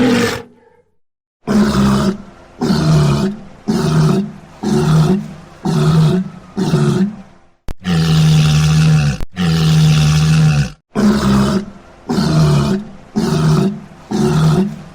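Walrus bellowing: a run of short, low, pitched calls about one a second, with two longer held bellows midway.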